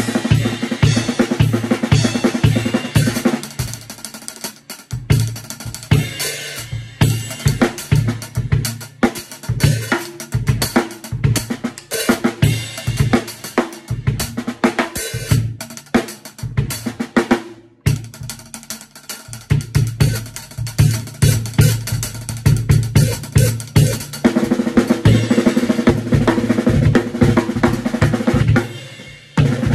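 Drum kit played at length: a looped sticking pattern of single and double strokes (right, left-left, right-right; then left, right-right, left-left) worked around the snare, toms and cymbals, with regular bass drum beats underneath. The playing breaks off briefly a little past halfway, then carries on.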